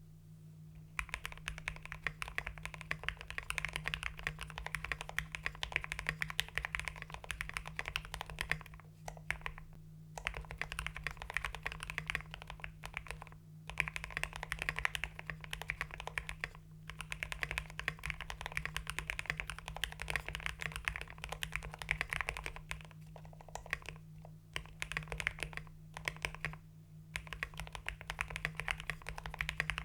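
Continuous typing on a mechanical keyboard with hand-lubed Gateron Pro Red linear switches, PBT XDA keycaps and an FR4 plate: a fast, dense run of key strokes with a deep, thocky sound, starting about a second in and pausing briefly a few times.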